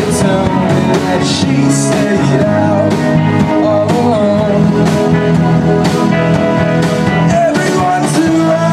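Indie rock band playing live: electric guitars, keyboard and drums with regular cymbal hits, and a male lead vocal singing a wavering melody over them.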